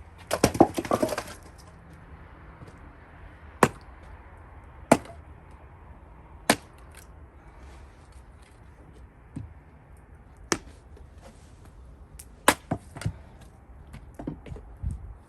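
Wood splitting with an axe: a clatter of cracking, falling cherry wood about half a second in, then single sharp knocks every one to few seconds as the axe strikes the rounds, with a quick run of knocks near the end.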